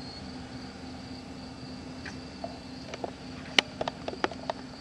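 Outdoor ambience with a steady high insect trill and a low steady hum. A quick run of about six sharp clicks comes between three and a half and four and a half seconds in, the first the loudest.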